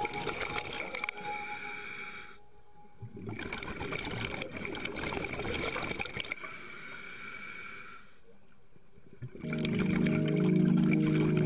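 Bubbling, crackling underwater noise of divers' exhaled scuba bubbles, picked up through an underwater camera housing, with two brief lulls. Background music with steady held tones comes in near the end.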